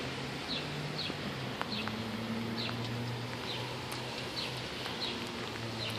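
Steady rain hiss, with a small bird giving short high chirps over and over, about one every half second to a second, and a faint low hum underneath.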